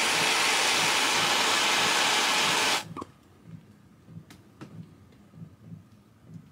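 Handheld gas torch burning with a steady loud hiss, shut off abruptly about three seconds in. A few faint clicks follow.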